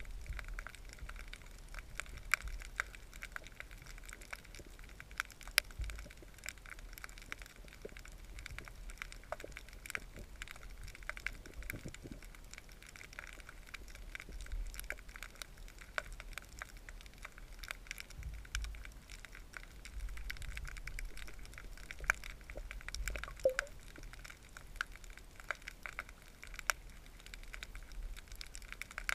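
Underwater ambience heard through a submerged camera: a steady, irregular crackle of sharp clicks over a low rumble of moving water.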